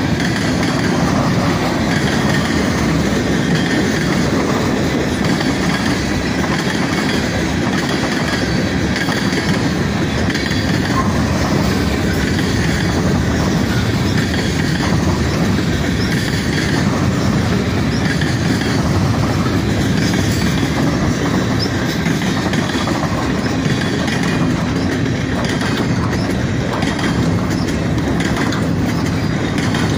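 Long freight train's cars rolling steadily past: steel wheels running on the rails as covered hoppers, boxcars, gondolas and then double-stack container cars go by.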